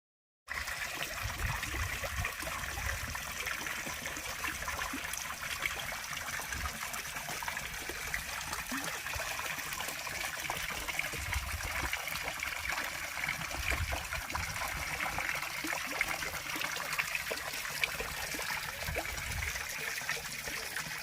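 Garden fountain splashing steadily into a pond, starting about half a second in, with irregular low rumbles underneath.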